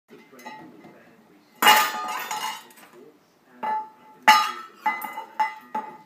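A rainbow lorikeet knocking a stainless steel bowl against the other metal bowls and cups in a kitchen drawer. One loud metallic clang about a second and a half in rings on for about a second, then a quicker run of clanks and clinks follows in the last two and a half seconds.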